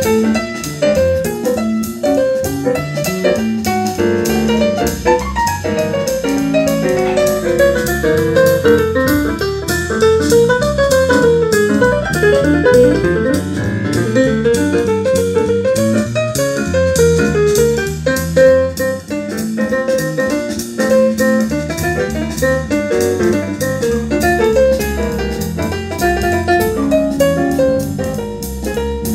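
Piano music with a drum beat, played through a pair of Infinity RS 1001 two-way bookshelf speakers in a listening test.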